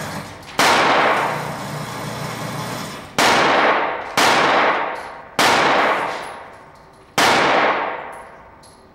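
Gunshots on an indoor pistol range: five sharp, loud reports at irregular intervals, each followed by a long echoing decay off the range walls.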